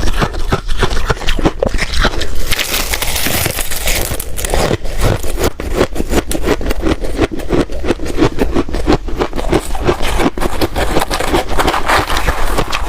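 Ice being bitten and chewed close to the microphone: a dense, rapid run of crisp cracks and crunches.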